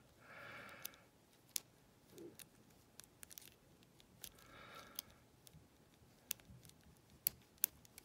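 Faint, irregular small metallic clicks of a lock pick working the pin tumblers inside a brass Lince padlock under a tension wrench. Two soft hisses come in, near the start and about halfway through.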